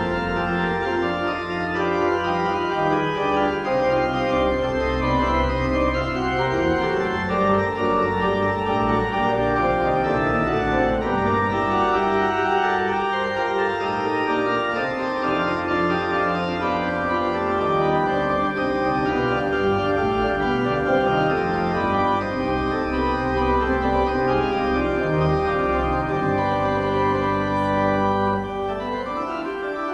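Organ playing sustained chords over a slowly moving bass line, the notes held steady without vibrato. Near the end the bass drops out and the sound eases slightly.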